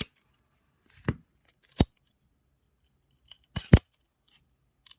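An old, stuck-together pack of 1994-95 Fleer basketball cards being bent and flexed, giving a few short sharp snaps as the card stack cracks apart, with the loudest a quick double snap about two-thirds of the way through.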